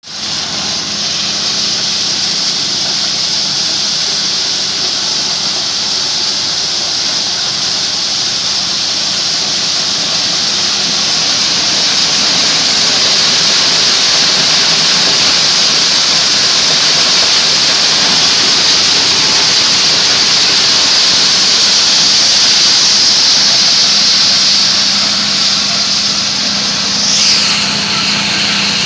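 High-speed maize sheller with a 16 hp engine running steadily while shelling maize: a loud, even mechanical noise with a strong hiss high up over a low hum.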